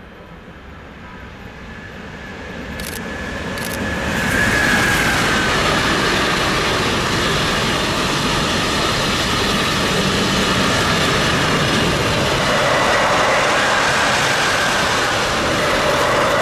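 Freight train of enclosed car-transport wagons running past close by: it grows louder over the first four seconds as the front arrives, then holds a steady rumble and wheel clatter from the passing wagons. A faint high tone early on drops in pitch about four and a half seconds in.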